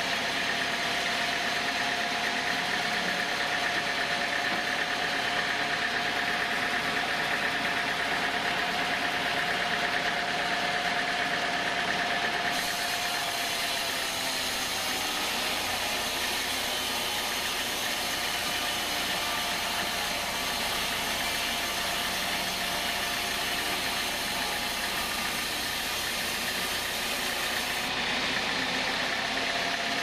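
Vertical band sawmill running and cutting lengthwise through a teak log: a steady machine noise with a held tone over dense noise. It turns hissier from about twelve seconds in until near the end.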